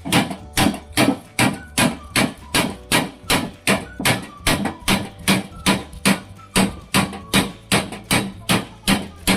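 Hammer blows on a door under construction, struck in a steady even rhythm of about two to three blows a second.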